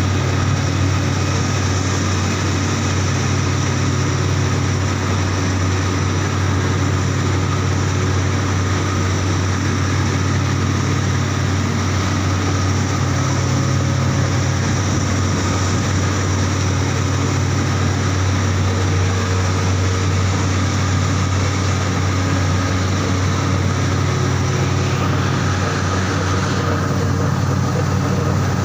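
Heavy industrial machinery running steadily: a loud, constant low hum with a layer of steady higher tones.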